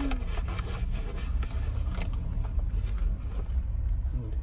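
Steady low rumble of an idling car heard from inside the cabin, with scattered small clicks and rustles from handling food and wrappers.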